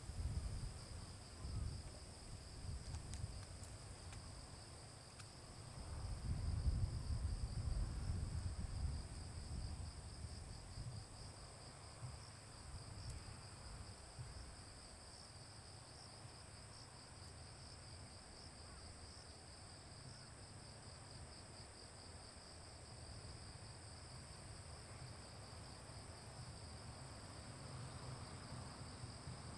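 Insects chirring steadily in a high, finely pulsing drone, over an uneven low rumble that swells at the start and again about six to nine seconds in.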